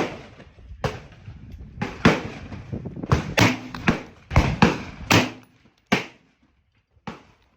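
A string of about eleven gunshots from a 5.56 AR pistol, fired at an uneven pace, some in quick pairs and others a second or more apart, each with a short echoing tail.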